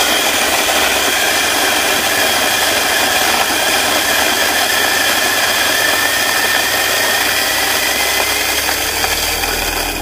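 Electric espresso grinder running, grinding coffee beans into a portafilter held under its spout: a loud, steady motor whirr with a faint whine. It winds down and stops near the end.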